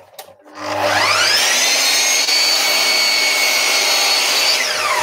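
Sliding mitre saw motor spinning up about a second in to a steady high whine while crosscutting a timber rail, then winding down near the end as the blade slows.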